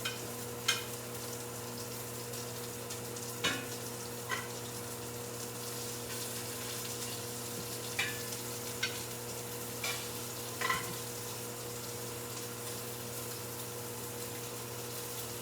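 Flour-dusted beef searing in hot oil, a steady sizzle, with a few sharp clicks in the first eleven seconds.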